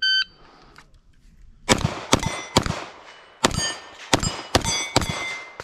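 Electronic shot timer beeps once. About a second and a half later a rapid string of gunshots follows, each hit answered by the ringing ping of a steel target plate.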